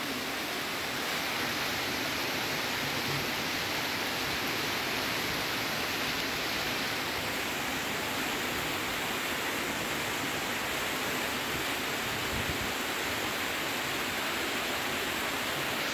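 Fast-flowing floodwater rushing down a street and splashing around obstacles, a steady unbroken wash of water noise.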